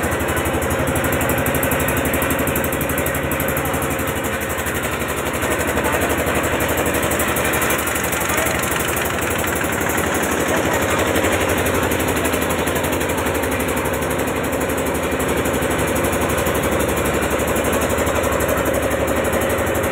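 A motorboat engine running at a steady speed, a fast even pulsing that does not change pace.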